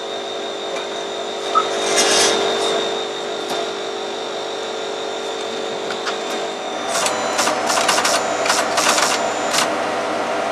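PDP-12 minicomputer running with a steady machine hum and a high whine that drops out about seven seconds in, followed by a quick run of clicks and clatters.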